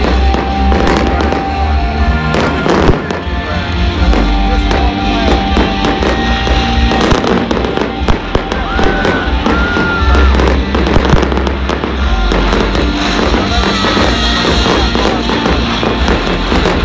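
Fireworks display: aerial shells bursting in rapid, irregular bangs and crackles, over music.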